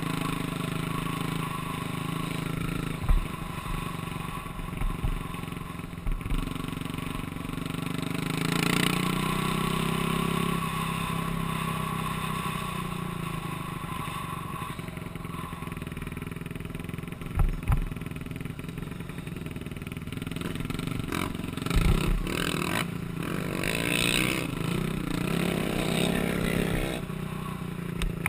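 Off-road vehicle engine running steadily while riding a dirt road, its pitch rising for a couple of seconds about eight seconds in. Several thumps and some clatter come through from bumps in the road.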